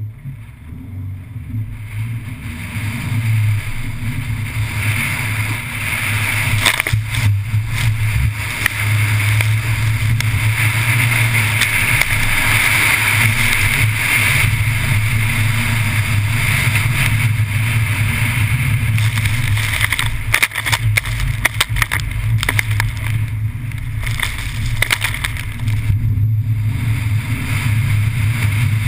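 Seat Leon FR's engine running under load with a steady low drone, while its tyres hiss through water on a soaked skid-training surface and spray rushes past.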